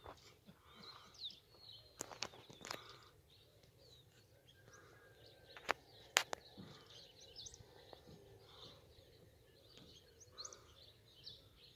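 Many small birds chirping and calling faintly. Two pairs of sharp clicks stand out, about two seconds in and again about six seconds in.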